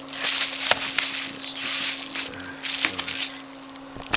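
Packaging crinkling and rustling as it is handled and opened, with a few sharp clicks and a loud click near the end, over a steady low hum.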